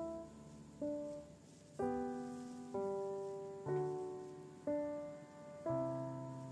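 Background piano music: slow, quiet chords struck about once a second, each left to fade before the next.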